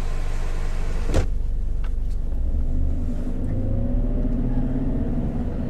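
A car engine running with a low rumble, a sharp click about a second in, then the engine note rising steadily as the car accelerates.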